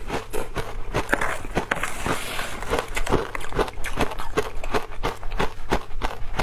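Close-miked chewing of ice coated in matcha powder: a steady run of crisp crunches, about three a second.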